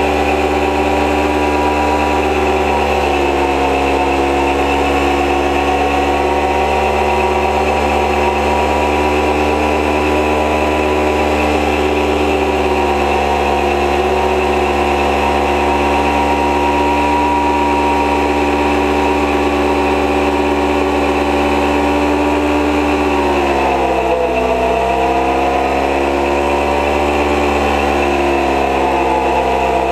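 Kawasaki ER-5's parallel-twin engine held at high, steady revs during a burnout, with the rear tyre spinning. The revs sag briefly about three-quarters of the way through, then pick back up.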